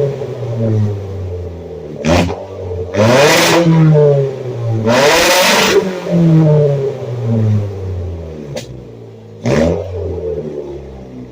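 Car engine revved repeatedly through an exhaust with a gutted catalytic converter, acting as a near-straight pipe. The revs climb to a loud rasp and fall back about four times, with a few short sharp cracks in between.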